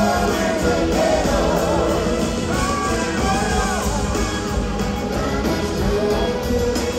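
Live band playing a soul-rock song: electric guitar, keyboards, bass and drums under several voices singing together.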